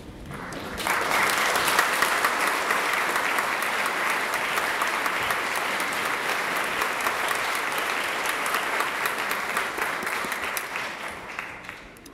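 Audience applauding: a round of clapping that swells in about a second in, holds steady, and dies away near the end.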